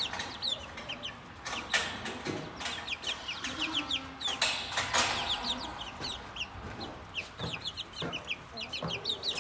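Three-week-old chicks peeping: many short, high cheeps that slide downward, overlapping one another, with scattered clicks and rustles.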